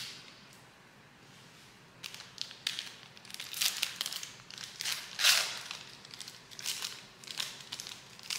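Crinkling of a foil trading-card pack wrapper being opened and handled, in a run of crackly bursts starting about two seconds in.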